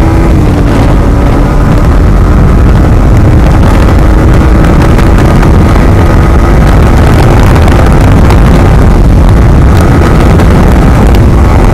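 Yamaha MT-15's 155 cc single-cylinder engine running at a steady cruise, heard from the rider's seat under heavy wind noise on the microphone. The rider says the bike's sound has totally changed and it is down on power, which he puts down to an overdue service.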